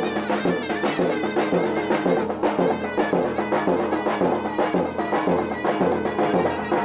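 Anatolian folk music of davul and zurna: a shrill double-reed zurna plays a wavering melody over steady davul drum beats.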